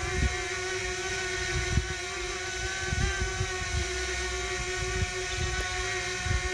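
DJI Mini quadcopter hovering side-on, its four propellers giving a steady whine of several held tones with a gurgling interference between them, louder than in the fore-and-aft orientation. Low gusts of wind buffet the microphone now and then.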